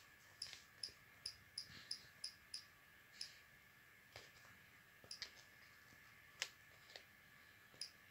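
Orisec CP-10 alarm keypad buttons being pressed to scroll its menus: about fourteen short, faint clicks, quick and regular for the first couple of seconds, then more spaced out. A faint steady high tone sits underneath.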